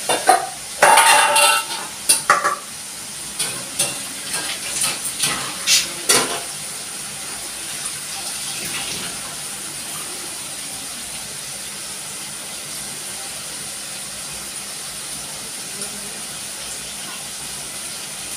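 Dishes and utensils clattering and knocking at the kitchen counter for about the first six seconds, over a steady sizzle of chicken frying in a wok on a gas stove; the sizzle carries on alone for the rest.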